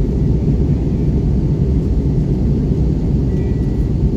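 Steady low rumble of an Airbus A320 heard from inside the passenger cabin during landing.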